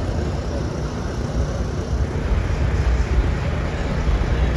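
Steady low rumble of vehicles, the sound sitting mostly in the deep bass.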